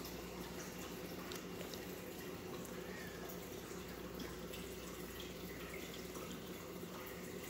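Saltwater reef aquarium's water circulation running: a steady trickle and splash of moving water with faint drips over a low, even pump hum.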